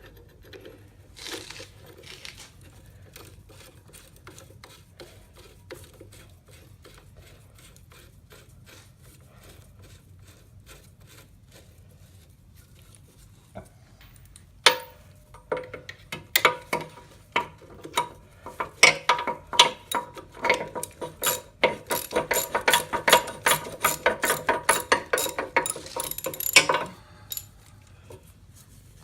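Ratchet wrench clicking as clamp bolts are tightened down. Faint scattered handling clicks come first; about halfway through a fast, even run of ratchet clicks, several a second, starts and stops a couple of seconds before the end.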